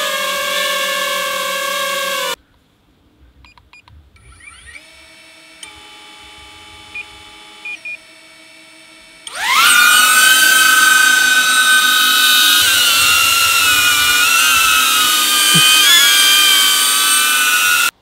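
DJI FPV drone hovering with a steady propeller whine that cuts off about two seconds in. A DJI Avata's motors then start with a quieter rising whine and a few short beeps, and about nine seconds in they spin up sharply into a loud, high propeller whine whose pitch wavers until it cuts off near the end.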